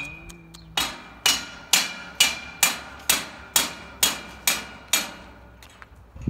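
Steady hammering, about ten sharp blows at roughly two a second, each with a short ringing tail, stopping about five seconds in.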